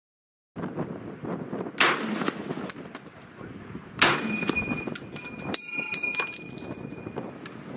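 A clip being handled with a rustling, scraping noise, snapping sharply twice, about two seconds apart. Bright metallic pings and a ringing follow, most of them after the second snap.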